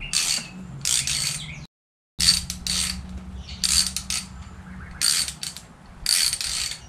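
Hand ratchet clicking in repeated short bursts as it is swung back and forth, backing out an oil galley plug from a Chevy 5.3 LS engine block. There is a brief dead gap a little under two seconds in.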